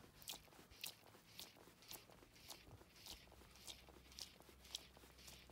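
Faint, short rasps about twice a second as a fly line is stripped in by hand through the rod guides in a fast retrieve.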